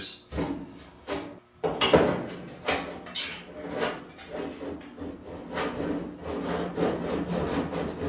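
Scraping, rubbing and knocking of sheet-metal dryer parts as a thermostat is worked by hand onto the heating element housing: irregular scraping strokes, with a sharper knock a little under two seconds in.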